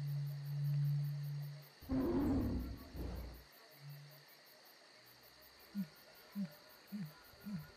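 Jungle sound effects: insects chirp steadily throughout. A low drawn-out call gives way to a loud roar about two seconds in, and a few short low calls follow near the end.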